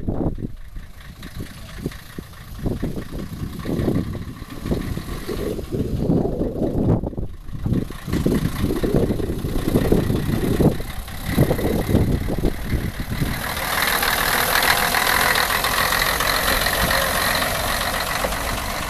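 Diesel engine of a Nanbu Jūkan Railway mechanical-transmission railbus running, pulsing unevenly. About two-thirds of the way in it turns into a louder, steadier rush as the railcar draws close and runs past.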